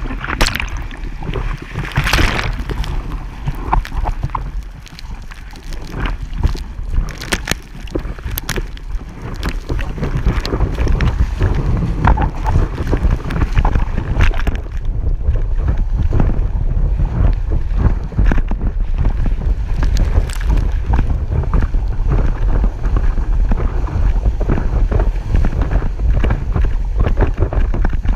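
Water splashing and rushing right at a surfboard-mounted camera, with heavy wind buffeting on its microphone. From about ten seconds in, the wind rumble and the rush of water grow louder and steadier as the board rides the wave.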